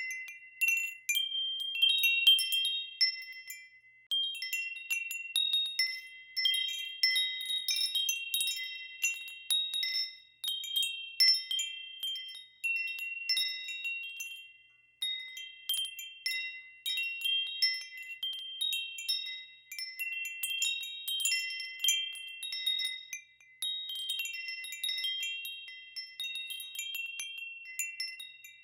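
Wind chimes ringing in irregular clusters of strikes. Several high tones overlap, each rings on and fades, with a few short lulls between clusters.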